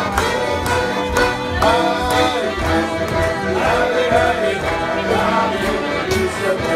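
Live folk band playing a tune, with a fiddle carrying the melody over accordion and guitar.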